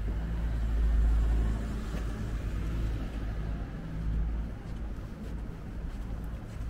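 A motor vehicle's engine running close by on a city street, a low rumble that starts suddenly, is loudest about a second in and eases off near the end.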